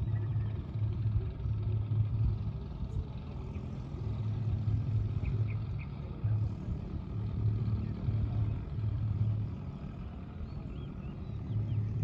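Riverside outdoor ambience: a low, uneven rumble that swells and fades every second or so, with a few faint, short bird chirps above it.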